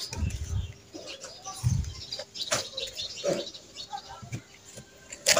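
Fresh banana leaf pieces rustling and crinkling as they are handled and layered into a cone, with a sharp click near the end. Two low bird coos sound in the background, about a second and a half apart.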